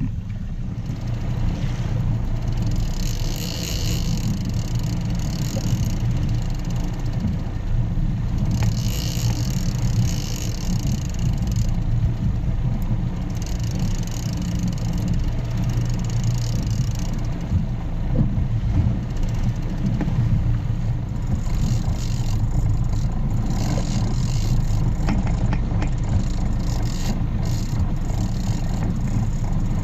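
Small outboard motor running steadily as an inflatable boat moves over choppy water, with stretches of hiss from wind and water coming and going.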